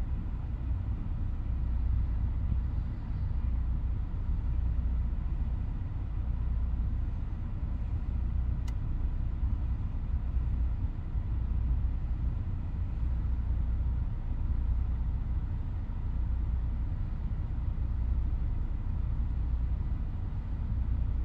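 Low, steady rumble of a freight train of covered hopper cars rolling past, heard from inside a stopped car, the low end swelling and easing about once a second.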